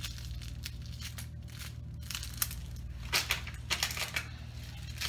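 Plastic oven cooking bag crinkling as it is handled and unfolded, in clusters of crisp crackles from about two seconds in, over a steady low hum.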